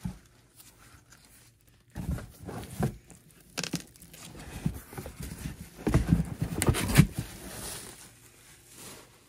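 Vinyl LP sleeves being handled in a cardboard shipping box lined with bubble wrap: rustling and scraping with irregular knocks of the records against the box, loudest about six to seven seconds in.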